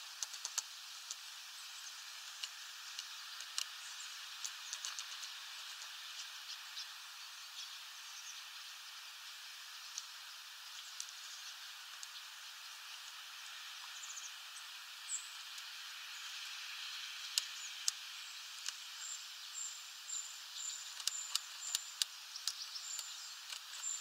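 Eurasian blue tit pecking at sunflower seeds on a wooden feeder tray: scattered sharp taps and cracks over a steady outdoor hiss. In the last few seconds a short, high, thin peep repeats about once or twice a second.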